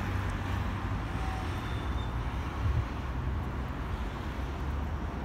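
Steady low outdoor background rumble with no distinct event in it.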